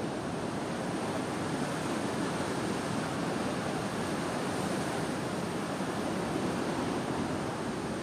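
Ocean surf breaking and washing up a beach: a steady, unbroken rushing noise.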